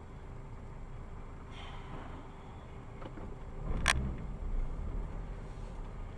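A car driving, heard from its dashcam, with steady road and engine noise, then one sharp crash of impact a little under four seconds in, typical of a collision, followed by a low rumble.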